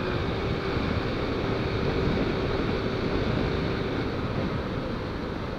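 Motorcycle riding at highway speed: steady wind rush on the rider's microphone over the engine running, easing slightly near the end.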